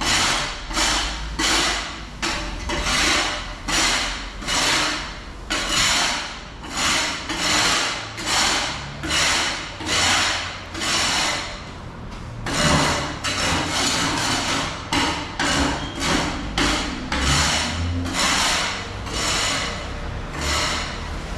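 Rhythmic gritty scraping strokes, about one and a half a second, each rising and fading, with a short break a little past halfway.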